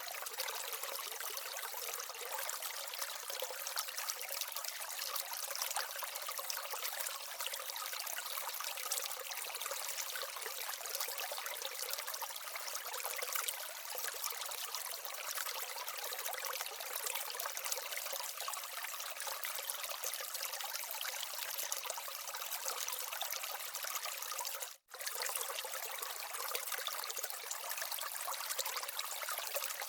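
Water trickling steadily down the small waterfall and stream of an aquaterrarium, cutting out briefly about 25 seconds in.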